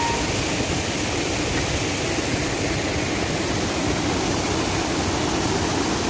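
Rushing water of a shallow rocky stream and waterfall, a steady, even rush with no breaks.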